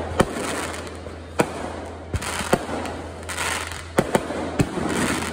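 Aerial fireworks display: about eight sharp bangs of shells bursting, irregularly spaced, with a dense crackle of bursting stars between them.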